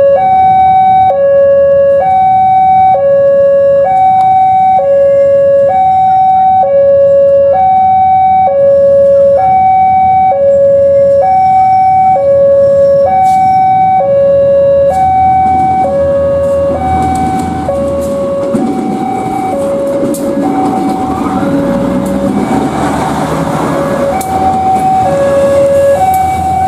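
Railway level-crossing warning alarm sounding a steady two-tone signal, switching between a higher and a lower tone about every second: the crossing is closed for an oncoming train. From about two-thirds in, the rumble of an approaching diesel railcar train grows beneath the alarm.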